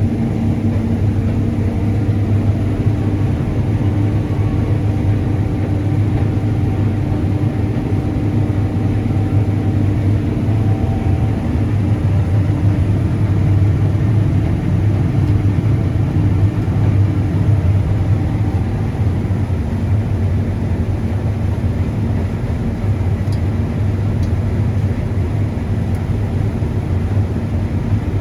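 John Deere S790 combine harvester running steadily while cutting wheat: a constant engine and machinery hum with a strong low drone.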